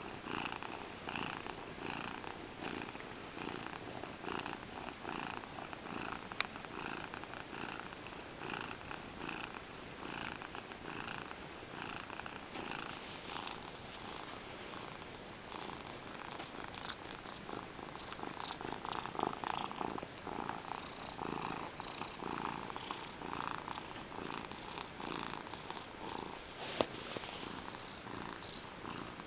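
Gray Manx cat purring steadily, in an even pulsing rhythm. A sharp click about six seconds in, and another near the end.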